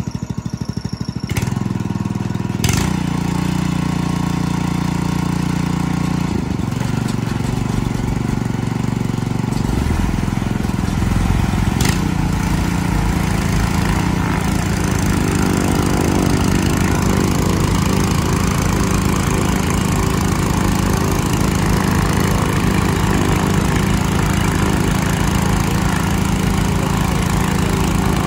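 Small gasoline engine of a portable transfer pump running steadily under load, pumping liquid through a hose into a crop-duster's hopper. Its note changes about ten seconds in and again around fifteen seconds in. A few sharp clicks come in the first few seconds and once more about twelve seconds in.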